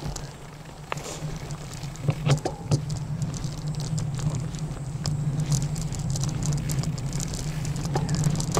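Loaded touring bicycle setting off and rolling along, with a steady low hum that builds about a second in and scattered clicks and rattles throughout.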